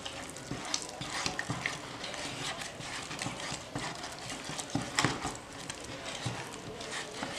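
A spatula stirring thick polyester putty mixed with catalyst in a small tub, making irregular scrapes and taps against the tub's sides and bottom, with a sharper knock about five seconds in.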